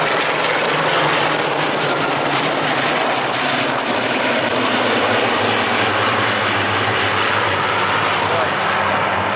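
Piston-engined propeller aircraft flying past, a steady engine drone whose note drops in pitch partway through as it passes.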